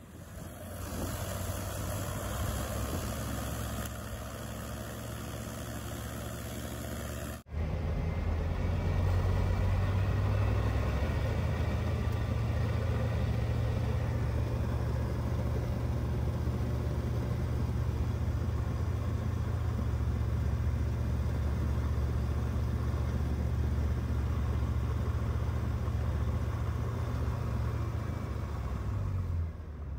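Rotax engine and propeller of an FK-9 light-sport airplane running steadily on the ground. The engine sound jumps louder about seven seconds in, then holds steady.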